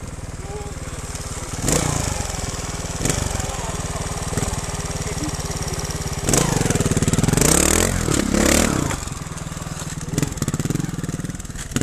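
Trials motorcycle engine idling steadily, blipped briefly about two seconds in, then revved hard and let fall twice between about six and nine seconds in.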